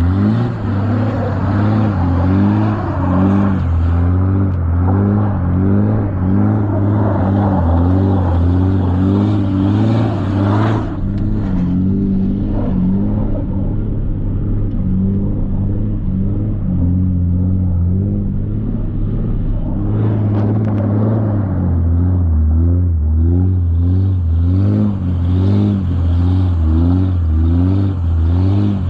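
Cummins diesel engine of a 3rd-gen pickup running steadily as the truck is driven on icy roads, a constant low drone.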